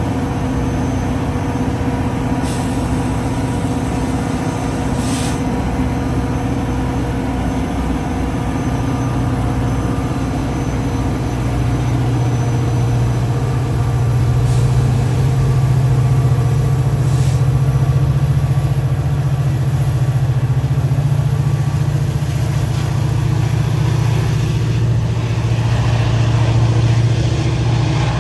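EMD F40PH diesel locomotive's engine running, steady at first, then throttling up and growing louder from about nine seconds in as it pushes its train out of the station, holding a deep steady drone through the rest.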